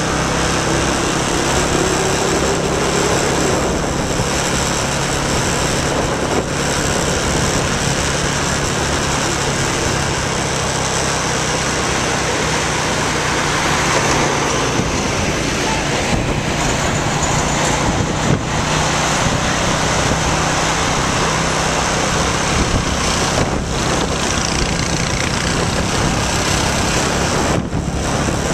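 Motorbike engine running steadily while riding through city traffic, with a constant low hum under steady road and traffic noise.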